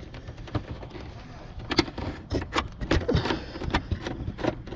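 A run of irregular clicks and knocks, loudest and closest together in the middle.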